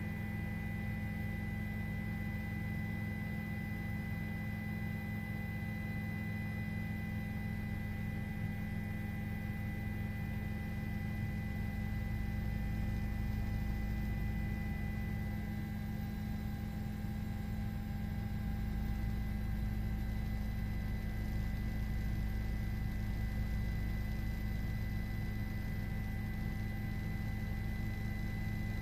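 News helicopter cabin noise over the crew intercom: a steady low drone of engine and rotor with several thin, steady whining tones above it.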